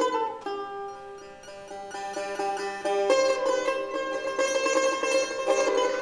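Instrumental music on a plucked string instrument. A note is struck at the start, then quick repeated notes ring over held tones, growing louder about halfway through.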